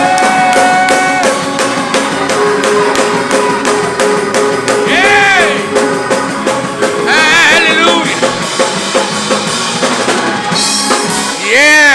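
Live gospel praise music: a drum kit keeping a quick steady beat under held keyboard chords, with a voice singing out a few short phrases.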